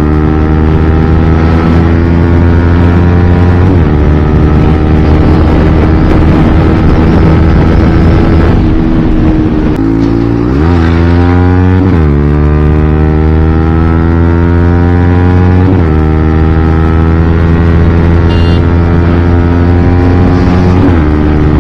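Yamaha MT-15 single-cylinder motorcycle with a loud exhaust, ridden hard through the gears. The engine note climbs in each gear and drops sharply at each of several upshifts. About halfway through the revs fall away, then climb steeply again.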